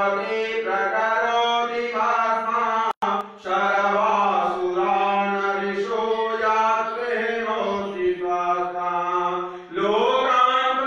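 A voice chanting a Sanskrit devotional hymn in a slow, melodic recitation over a steady low drone. The sound cuts out for a moment about three seconds in.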